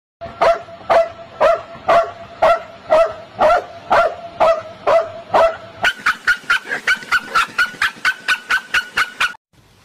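A dog barking repeatedly at an even pace, about two barks a second. About six seconds in, the barks turn higher-pitched and faster, about five a second, then stop suddenly.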